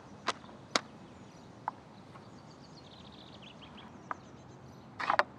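A plastic water bottle handled and drunk from: two sharp clicks in the first second and a short crackle near the end. Faint bird chirps sound in the background.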